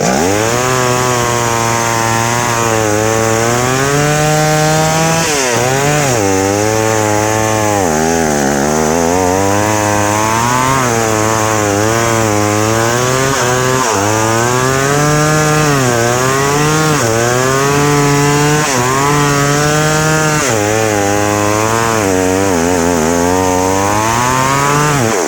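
Two-stroke chainsaw revving up and cutting through a tree. Its engine note sags each time the chain bites into the wood and climbs again as it frees up, over and over.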